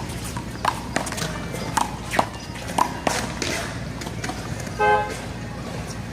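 Rubber handball being slapped by hand and struck against the wall during a one-wall rally: about six sharp smacks over the first three seconds. About five seconds in, a car horn gives one short toot.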